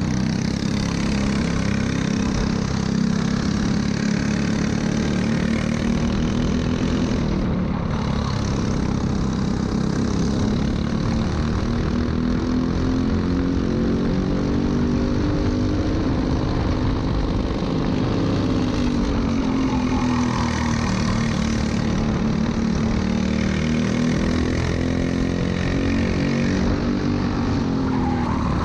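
Briggs & Stratton LO206 single-cylinder four-stroke kart engine running at race pace. Its pitch climbs as the kart accelerates and falls as it slows, with a dip about seven seconds in and another near the end.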